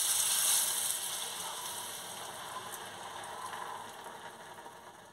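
Coconut milk mixed with poppy-seed and mustard paste poured into hot mustard oil on a tawa around frying stuffed pointed gourds, sizzling loudly at first and dying away steadily.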